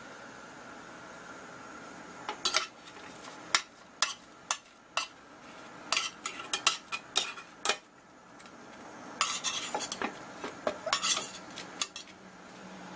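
Irregular clinks and scrapes of something hard working against a skillet, in short uneven strokes with gaps between them.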